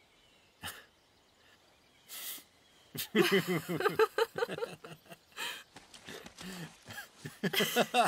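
A man and a woman laughing together, starting about three seconds in after a couple of short, soft sounds.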